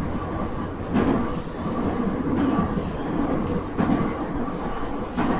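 Nankai 2300-series electric commuter train running, heard from inside the car: a steady low rumble with a faint steady hum, and wheels knocking over rail joints about three times.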